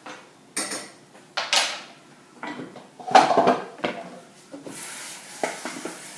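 Spoon and metal pot clattering and scraping as beans are added to a pot of chili coming to a boil: a series of sharp knocks, the loudest about three seconds in.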